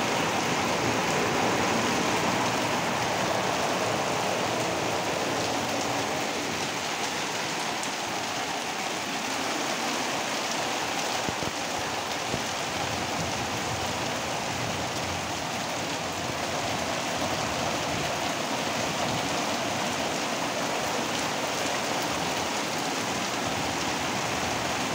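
Heavy rain falling steadily onto a flat concrete roof, splashing into standing water.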